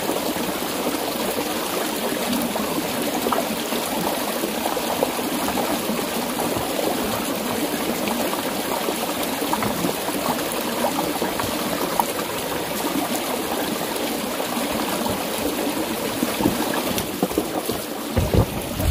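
Shallow rocky stream running steadily over stones. A few low thumps near the end.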